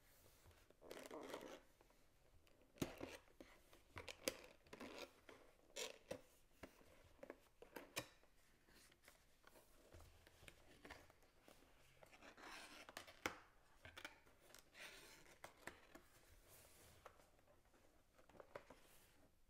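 A cardboard collectible-figure box being handled and opened by hand: scattered sharp clicks, taps and scraping of the card flaps, with short rustling stretches. Near the end, the clear plastic blister tray inside scrapes against the cardboard as it is worked out.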